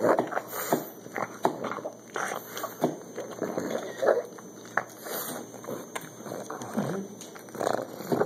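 Pug puppy gnawing kernels off a corn cob held up to her: irregular chewing and mouth clicks, bite after bite.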